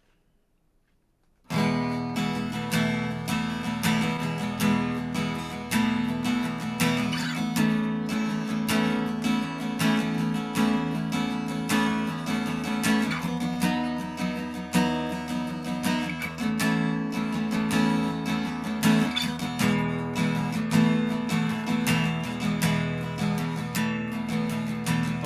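Acoustic guitar strummed in a steady rhythm, an instrumental passage with no singing. It starts about a second and a half in, after a short silence.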